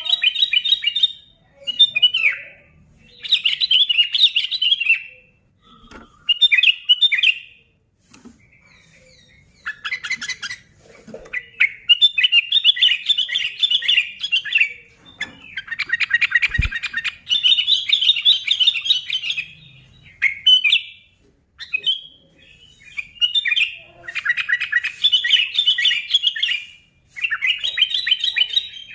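Sooty-headed bulbul singing loudly and busily: bursts of rapid chattering, warbling phrases a second or two long, one after another with short pauses between.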